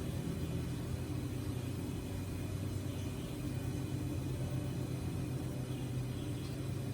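A steady low machine hum that holds even and unchanging.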